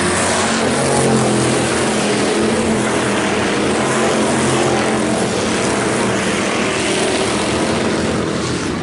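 Dirt-track IMCA Hobby Stock race cars running hard past the fence, a loud, steady mix of several engines at the checkered flag.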